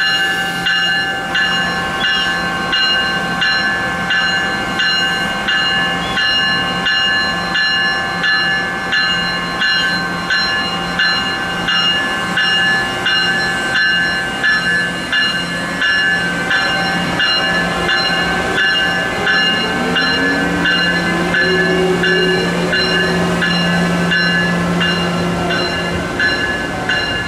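Amtrak Siemens ACS-64 electric locomotive pulling its passenger train away from a station stop: a repeating ringing tone pulses a little over once a second over a steady electrical hum. From about twenty seconds in, a whine rises in pitch as the train picks up speed.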